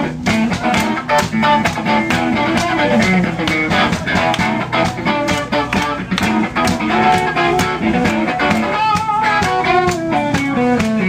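Live blues band playing an instrumental passage: electric guitar lines over a steady drum beat, with a falling guitar run near the end.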